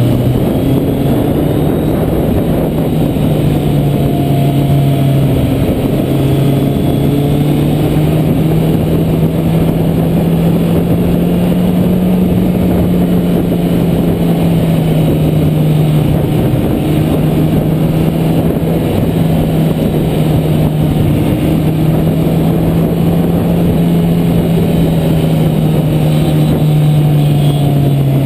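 Kawasaki Z800's inline-four engine running at a steady cruise, its note rising and falling gently with the throttle through the bends. A steady rush of wind noise runs under it.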